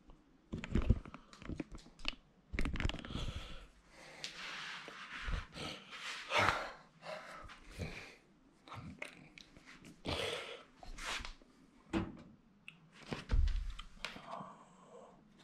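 A dog breathing and moving about, amid irregular knocks and rustling handling noises.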